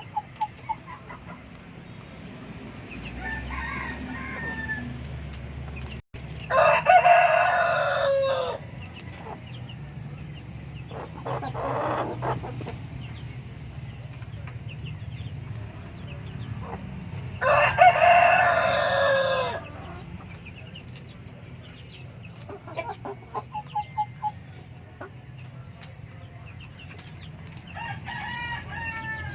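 A rooster crows twice, each crow lasting about two seconds, with chickens clucking in short calls between the crows and near the end.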